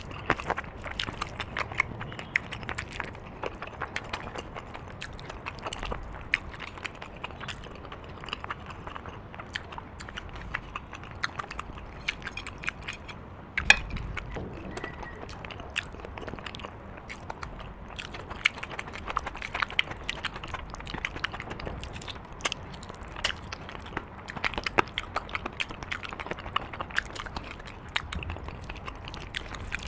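A person eating close to the microphone: a steady stream of chewing with many quick wet mouth clicks and smacks, and one sharper click about fourteen seconds in.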